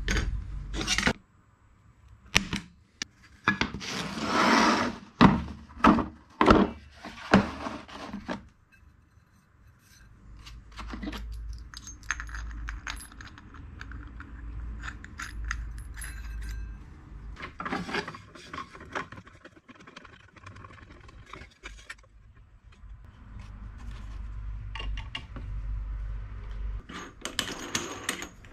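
Hand-work noises at a workbench: a long run of separate knocks, clicks and clinks from tools and pieces being picked up and set down, with a scrape lasting about a second around four seconds in.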